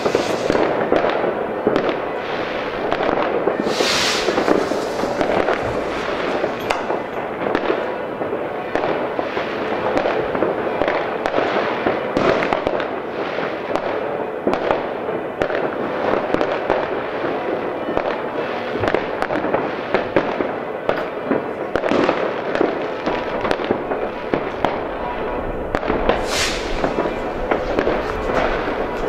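Many fireworks and firecrackers going off at once across a wide area: a dense, continuous crackle of overlapping distant bangs. A brief hissing burst comes about four seconds in and another near the end.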